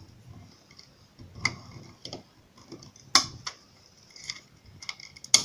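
Plastic case of a remote control being prised apart by hand, its snap-fit clips releasing in scattered small clicks and a few sharper snaps, the sharpest near the end.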